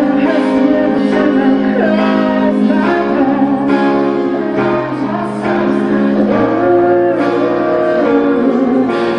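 Stage keyboard playing sustained chords that change about once a second, with a voice singing a melody over them.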